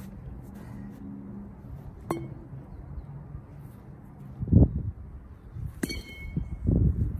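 A metal baseball bat hits a ball twice, each hit a sharp ringing clink. The second hit, near the end, rings at several pitches. A dull low thump comes between the two hits.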